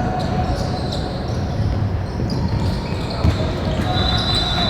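Basketball game in a gym: a ball bouncing on the hardwood, footsteps, and spectator chatter echoing in the hall, with a brief high squeak or tone near the end.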